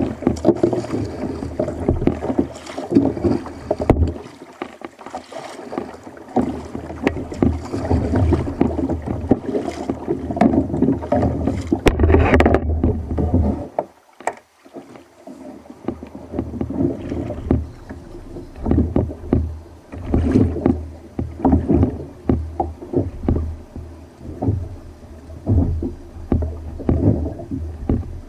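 Water splashing and slapping against the hull of a fishing kayak, with paddle strokes in the first half. The paddling stops about halfway through, leaving waves knocking against the hull in a loose rhythm.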